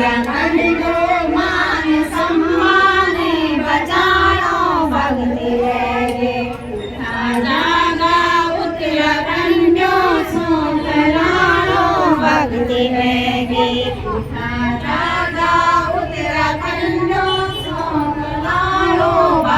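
A group of women singing or chanting together in unison, a simple repeating melody with many voices at once.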